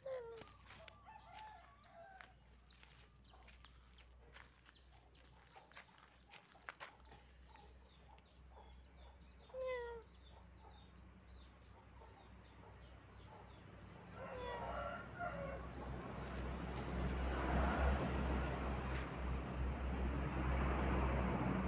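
Chickens clucking in short calls, with small birds chirping high in the first half. From about 14 seconds in, a louder low rumble of wind or handling noise on the microphone takes over.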